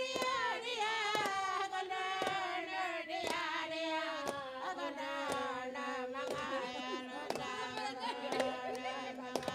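An Inma song sung by a group of voices in unison, a chant on long held notes that step down in pitch over the first few seconds and then hold low, over a steady struck beat about twice a second.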